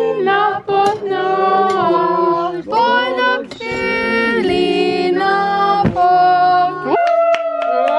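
A voice singing a melody over music, with held notes and glides between them.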